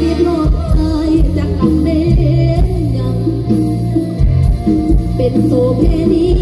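Live amplified mor lam band music: a singing voice with a melody that bends and slides in pitch, over a held bass and irregular bass-drum hits.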